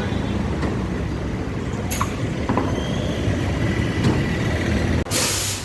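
Steady low rumble of workshop or street noise with a few light clinks, then near the end a sudden loud hiss of a compressed-air blast.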